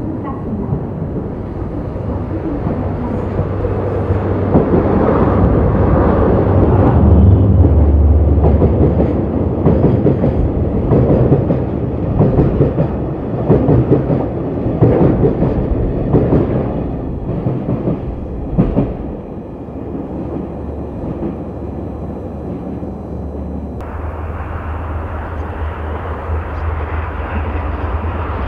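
A DD51 diesel-hydraulic locomotive hauling a freight train past: a low engine drone that swells over the first several seconds, with a run of wheel clicks and wagon rattles over the rail joints, settling after about twenty seconds. A little later it switches abruptly to another steady diesel drone of the locomotive running.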